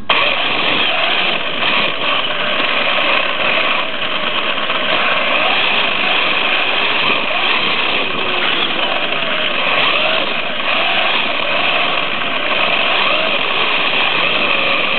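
Brushless Traxxas Stampede RC truck running hard on slick tyres across a tiled floor: a motor and drivetrain whine rising and falling in pitch with the throttle over a steady hiss of tyre and gear noise.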